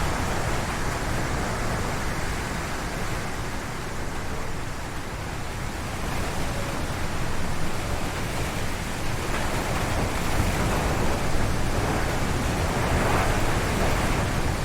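Strong wind gusting through forest trees, a steady rushing noise. It eases slightly a few seconds in, then builds again in the second half.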